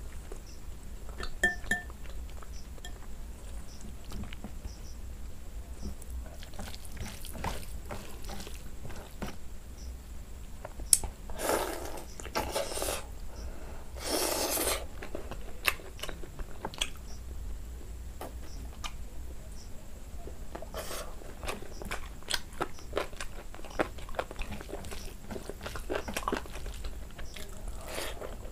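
Close-miked eating by hand, mukbang style: a steel spoon clinking against a glass bowl of chicken curry, fingers working curried rice, then chewing and wet mouth smacks, with two longer wet sucking sounds around the middle.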